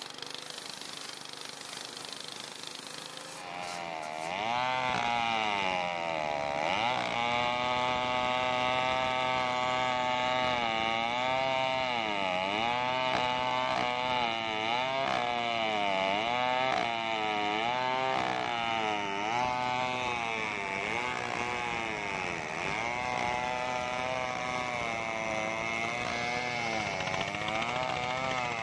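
Chainsaw ripping a coconut-palm log lengthwise, its engine note sagging under load and picking up again every second or two, over the high rasp of the chain in the wood. For the first few seconds only a steady hiss is heard before the engine comes in.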